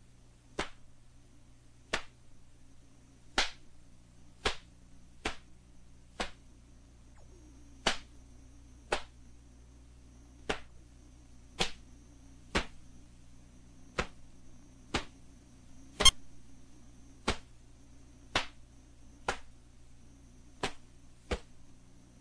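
Sharp snaps of a taekwondo uniform's cotton cracking with each fast punch, block and kick of a solo form, about one a second at an uneven pace, one louder than the rest past the middle. A faint steady electrical hum runs underneath.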